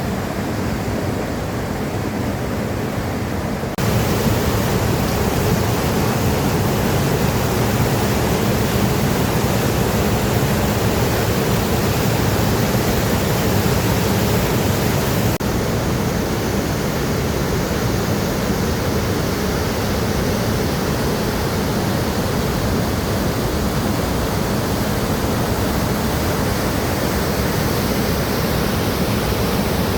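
Rushing river water, a steady loud roar of rapids or a small waterfall. It steps up in loudness about four seconds in and changes tone again around the middle.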